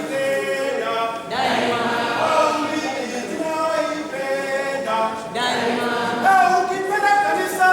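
Unaccompanied voices singing a chant-like song in held, wavering notes. Twice, about a second and a half in and again past the halfway mark, the singing swells into a rougher, fuller burst of voice.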